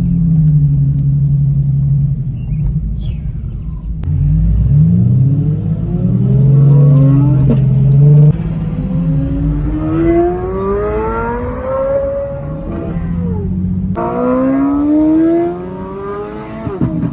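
High-performance sports car engine and exhaust: a steady low drone, then hard accelerations with the engine note climbing through the gears. In one pull the pitch drops away as the car goes past. The sound cuts abruptly between takes twice.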